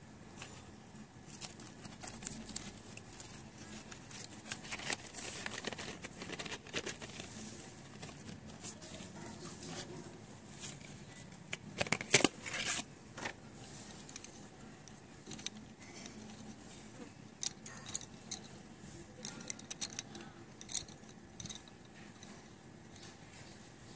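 Hands handling a cardboard colour-pencil box and wooden colour pencils: scattered rustling of card and packaging with light clicks and taps of pencils knocking together. The loudest cluster of rattles comes about halfway through, as the pencils are slid out of the box.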